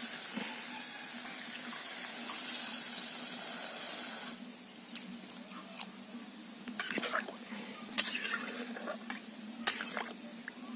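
Curry hissing loudly in a hot iron kadai as water goes in, a hiss that cuts off about four seconds in. Then a metal spatula stirs the watery gravy, knocking and scraping against the pan about three times.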